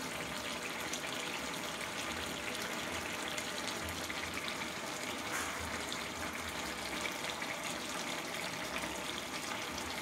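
Thick koorkka (Chinese potato) masala curry simmering in a pan, a steady bubbling and spitting as its liquid reduces toward a thick paste.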